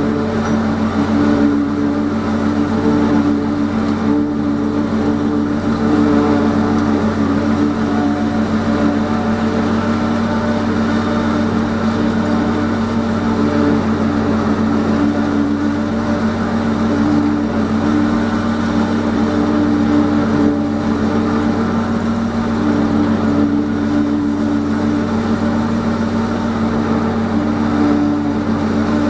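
Tractor engine pulling a John Deere forage harvester as it chops standing corn into silage, heard from inside the tractor cab. A loud, steady drone that holds even throughout.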